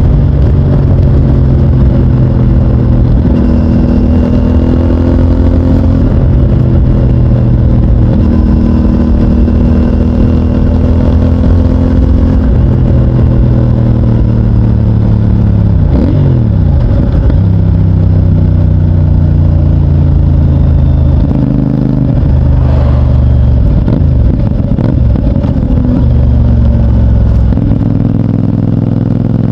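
CFMOTO 450NK's parallel-twin engine through its stock exhaust, running under way, its pitch stepping up and down every few seconds with throttle and gear changes. About halfway through the revs drop sharply and climb back up.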